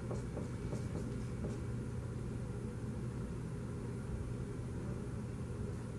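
Dry-erase marker stroking on a whiteboard, faint short scratches in the first second and a half, over a steady low hum in the room.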